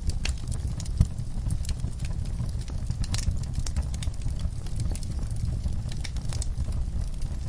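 Fire crackling, with scattered sharp pops and snaps over a low, steady rumble, and one louder pop about a second in.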